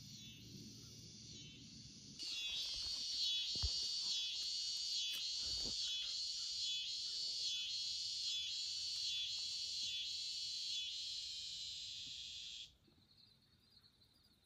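Insects buzzing in a loud high-pitched chorus that pulses evenly about one and a half times a second. It starts suddenly about two seconds in and cuts off sharply near the end, leaving a fainter steady insect trill.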